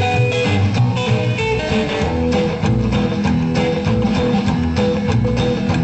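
Rockabilly band recording in 1950s style, guitar to the fore over bass notes and a steady drum beat.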